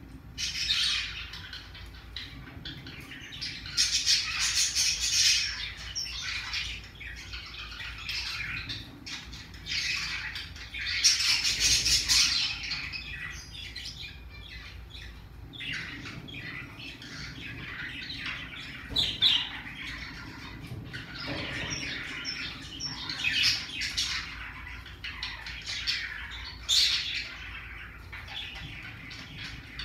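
Pacific parrotlet making scattered short squawks and chirps among scratchy rustling and clicks, in irregular bursts.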